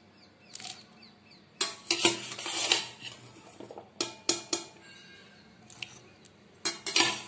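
Kitchen clatter: a perforated metal strainer knocking against a bowl and its wire whisk as boiled cauliflower florets are tipped into a liquid buttermilk-spice marinade. Several clusters of sharp clinks and short rattles, separated by quiet gaps.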